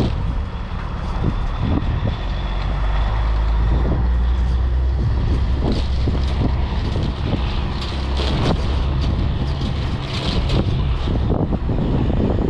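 Diesel semi truck engine running, a steady low rumble, with gusts of wind buffeting the microphone.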